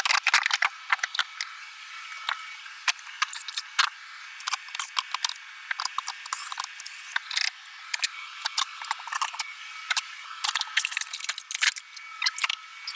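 Interior demolition work inside a motorcoach: an irregular, fast run of clicks, rattles and scrapes as fittings and panels are pried and pulled loose. The sound is thin, with no low end, over a faint steady high hum.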